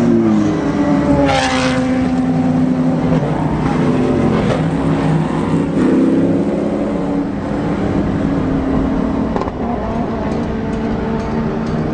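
Race car engines at speed passing close by on the straight one after another, each engine note dropping in pitch as the car goes past.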